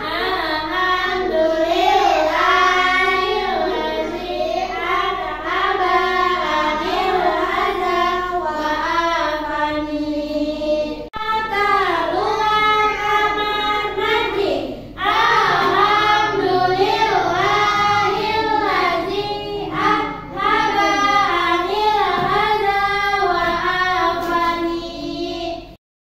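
Young children singing a song together, with a woman's voice among them. The singing breaks off sharply twice and stops abruptly just before the end.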